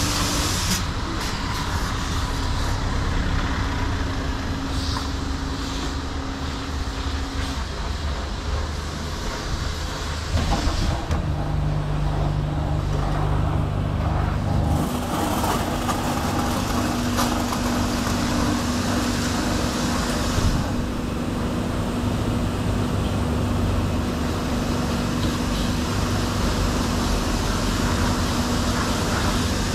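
Christ Cadis C17 rollover car wash on its high-pressure rinse: a steady hiss of water jets hitting the car over the hum of the machine's pump and motors. Partway through, the hum changes pitch as the roof high-pressure pass gives way to the side high-pressure and wheel wash.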